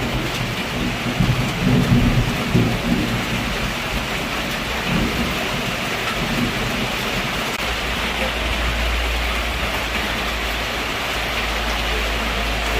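Heavy rain falling steadily, with thunder rumbling low and unevenly, loudest in the first few seconds. A steady deep rumble comes in about halfway through.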